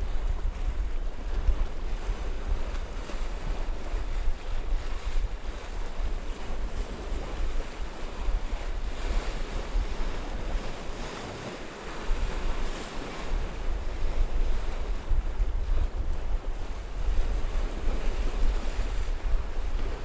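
Choppy sea waves splashing and washing, with gusty wind buffeting the microphone as a low rumble that eases briefly about halfway through.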